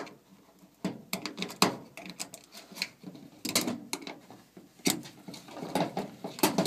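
Screwdriver scraping and clicking against the plastic agitator dog housing of a washer agitator as broken agitator dog pieces are dug out: irregular scratches and clicks with short pauses.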